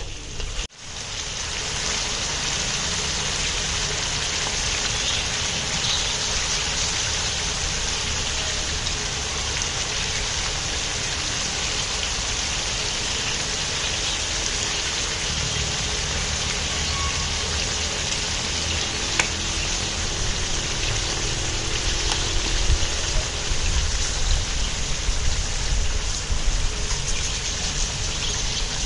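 Chicken and chili paste frying in a large wok, a steady sizzle with a low rumble underneath.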